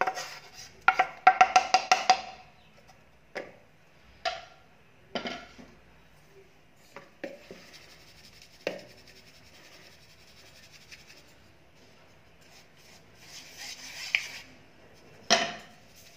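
A wooden spatula knocking and scraping roasted gram flour out of a metal kadai, a fast run of ringing knocks in the first two seconds, then scattered single knocks. In between, a soft rustling hiss as the flour is shaken through a steel sieve.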